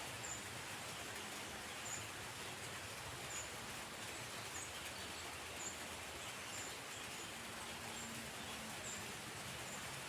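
Outdoor natural ambience before rain: a steady hiss of wind and rustling foliage, with a faint, short, high chirp repeating about once a second.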